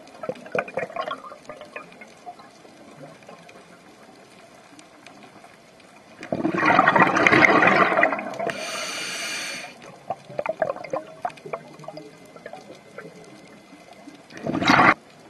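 Scuba diver breathing through a regulator underwater: a loud gurgling rush of exhaled bubbles about six seconds in, a hissing inhale soon after, and a short burst of bubbles near the end, with faint crackling and clicks between breaths.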